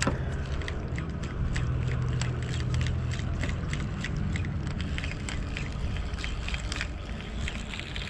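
Spinning reel cranked through a lure retrieve, giving a run of light, irregular clicks about three or four a second over a steady low hum.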